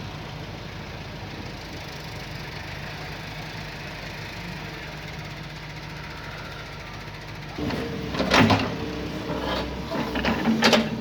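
Doosan DX140 excavator's diesel engine running steadily, then its note rising about three-quarters of the way through as the machine works, with loud metallic clanks and rattles near the end.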